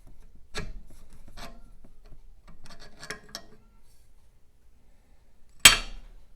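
Metal engine parts being handled on a workbench: a few light clicks and scrapes, then one sharp metallic clank with a short ring near the end.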